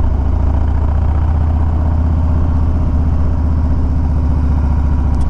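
Harley-Davidson Low Rider ST's Milwaukee-Eight 117 V-twin running steadily while the motorcycle is ridden up a mountain road.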